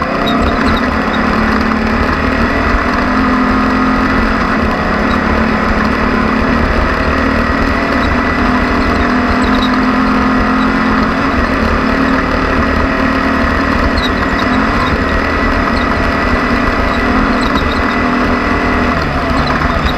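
Off-road race vehicle's engine running steadily at speed, its drone wavering slightly in pitch over a constant rushing noise.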